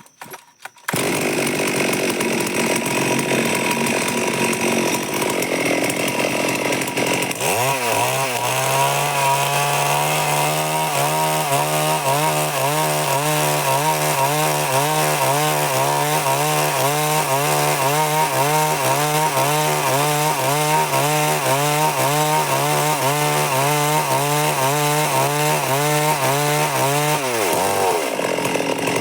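Stihl MS 382 two-stroke chainsaw running at high revs, then held in a cut through wood for about twenty seconds, its engine note steady under load with a regular wavering about twice a second. It comes out of the cut near the end.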